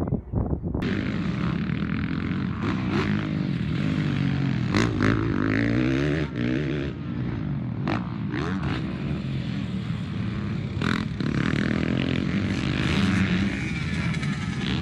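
Dirt bike engine revving hard and backing off again and again as the rider goes over motocross jumps, its pitch climbing and dropping. A short stretch of wind on the microphone comes before it.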